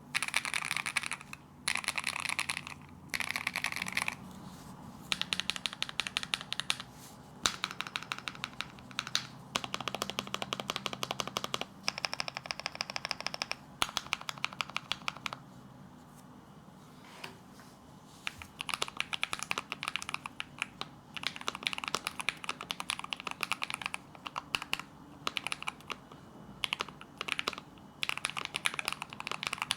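Typing on a Zuoya GMK67 mechanical keyboard with Feker Matcha V2 linear switches: fast runs of keystrokes in bursts, stopping for a few seconds about halfway through. The keys give the louder 'thock' these switches are known for.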